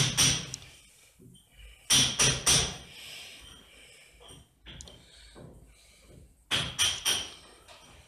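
Three short clusters of sharp knocks and thuds, two or three strokes each: one at the start, one about two seconds in and one near the end, with quieter scuffing between.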